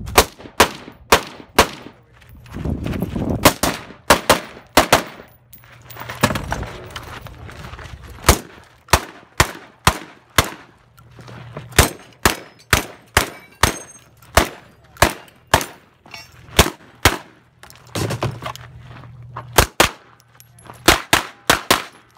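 Several dozen gunshots in quick pairs and short strings with brief pauses between them, from a scoped AR-style rifle and then from a pistol near the end, during a 3-gun competition stage.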